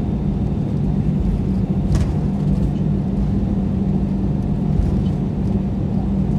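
Airbus A320 taxiing, heard from inside the cabin over the wing: the engines at taxi idle give a steady low rumble and hum. A brief click sounds about two seconds in.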